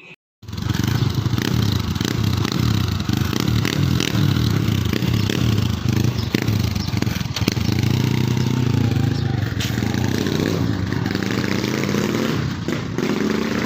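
Honda 125 single-cylinder motorcycle engine running loudly through a gutted 'kalkal' exhaust pipe, a steady, rough exhaust note that starts abruptly about half a second in; the revs rise near the end.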